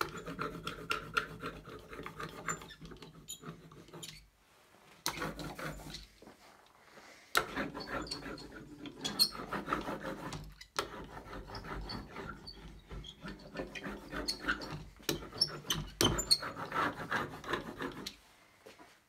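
Small ink brayer rolling back and forth over a carved wooden relief block, giving a sticky, crackling rub from the tacky ink. The rolling stops briefly a few times.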